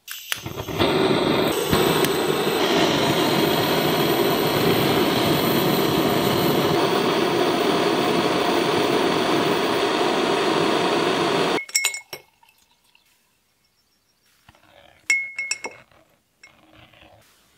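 Handheld gas-cartridge blowtorch lit and running with a steady, loud flame hiss while it heats a small steel part red-hot; the hiss stops suddenly about two-thirds of the way in. A few sharp clinks of metal tongs against a glass jar follow near the end.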